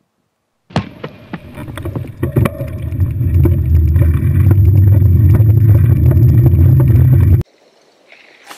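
An engine starts up with a clatter and builds over a couple of seconds to a loud, steady low rumble, then cuts off abruptly near the end.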